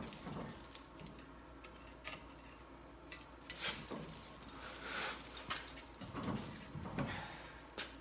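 Steel pry bar clinking and scraping against a seized front wheel hub as it is levered loose from the steering knuckle: scattered light metallic clicks and rattles, with a few longer scrapes.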